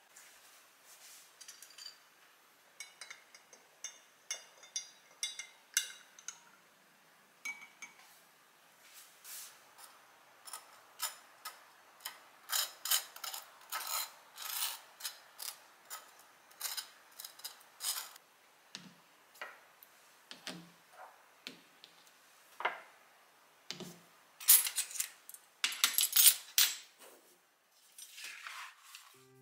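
Kitchen handling sounds: a metal utensil scraping and tapping on thick toast, then small glass jars with metal lids clinking as they are picked up and set down on a wooden tray. The jar clinks near the end are the loudest.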